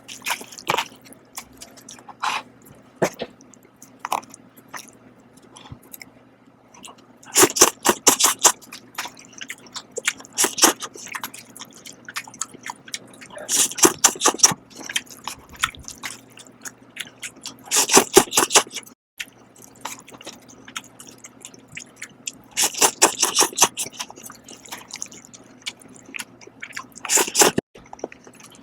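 Close-miked eating of Shin Ramyun instant noodles: wet chewing with scattered small clicks, broken by about five dense bursts of slurping spaced four to five seconds apart.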